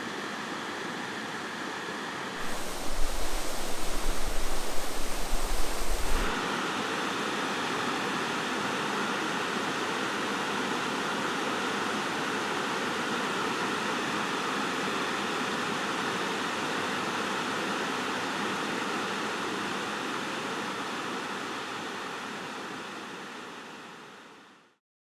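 Steady rushing of a mountain trout stream and its waterfalls. About two and a half seconds in, a louder, rougher stretch with a low rumble lasts a few seconds. Then the even rush returns and fades away to silence near the end.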